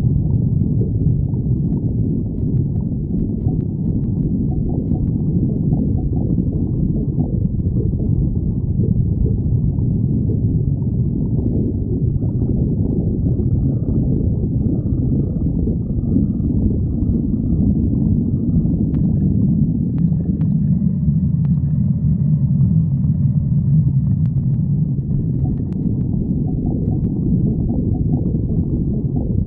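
A person's stomach growling: a continuous low growl with no break, with a few faint higher squeaks in the second half.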